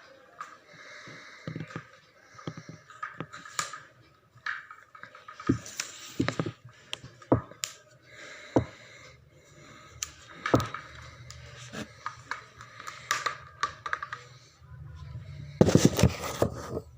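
Clicks and knocks of a tripod's leg locks being opened and its telescoping steel legs pulled out, with handling rustle in between and a louder burst of clattering near the end.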